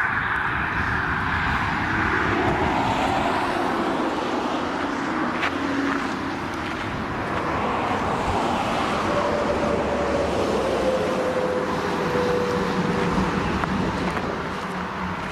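Steady outdoor noise of road traffic and wind, with a faint hum that slowly drops in pitch about two-thirds of the way through as a vehicle passes.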